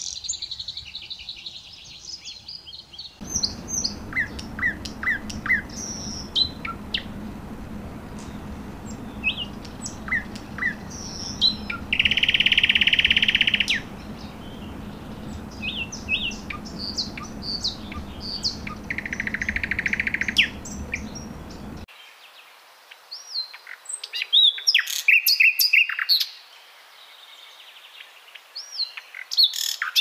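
Common nightingale singing: a varied run of separate phrases of sharp whistles, rapid repeated notes and a couple of longer buzzy rattles, with short pauses between phrases.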